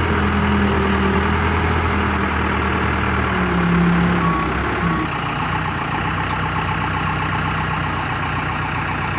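Heavy vehicle engine idling steadily, its note changing about five seconds in.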